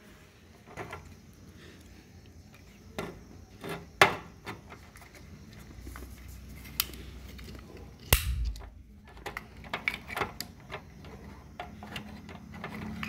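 Scattered clicks and knocks of a plastic miniature circuit breaker and its wiring being handled and pushed against an inverter's metal cabinet while it is fitted, with a sharper knock about four seconds in and a dull thump about eight seconds in.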